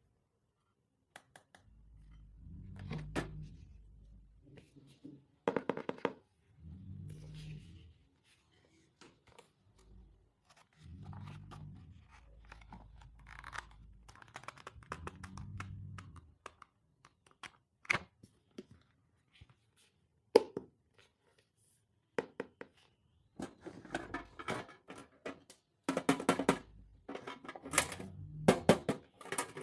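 Handling noise of stationery and its packaging: scattered clicks, taps and knocks with some rustling, getting busier near the end.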